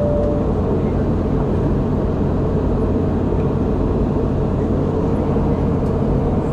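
Steady cabin noise of a Boeing 717-200 in flight, heard inside the cabin from a forward window seat: a low, even rush of airflow and the rear-mounted Rolls-Royce BR715 engines, with a constant hum underneath. A brief steady tone sounds right at the start.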